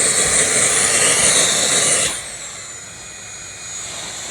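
Vacuum cleaner motor running with a high whine. About two seconds in, the whine slides down in pitch and the sound gets quieter.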